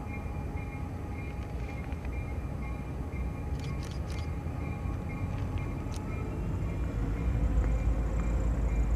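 Norfolk Southern diesel freight locomotives approaching, a low engine rumble that grows louder over the last couple of seconds. A faint high ringing repeats about twice a second.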